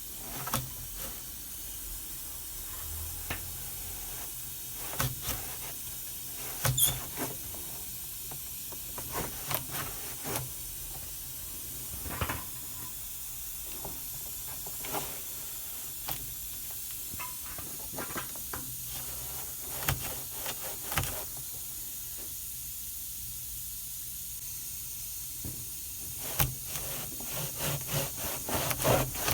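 Scattered clicks and light knocks of washing-machine parts being handled during disassembly and cleaning, irregularly spaced, over a steady faint hiss and low hum, with a busier run of clicks near the end.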